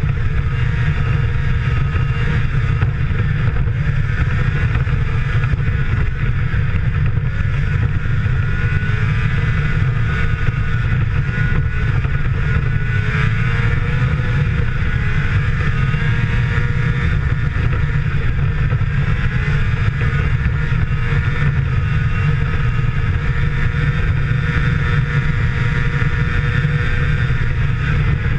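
Arctic Cat snowmobile engine running steadily while the sled travels across snow, its pitch wavering slightly around the middle.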